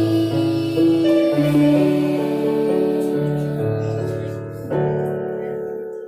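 A group of electronic keyboards set to a piano sound, playing a slow piece together over a moving bass line. A final chord is struck near the end and fades away.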